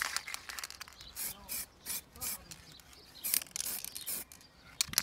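Aerosol spray-paint can sprayed in a rapid series of short bursts, each a brief hiss, with one slightly longer spray about three and a half seconds in.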